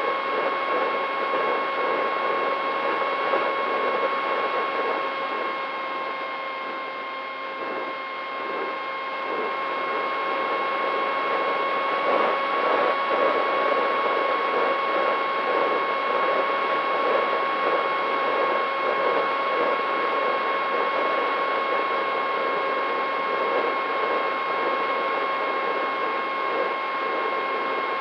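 Brushless electric motor of an FPV flying wing (DYS Fire 2206 2300KV with a Gemfan 6x4 propeller) whining steadily in flight, heard from the onboard camera, with a buzzing rattle from the airframe's vibration. The whine eases a little for a few seconds about a quarter of the way in, then picks up again.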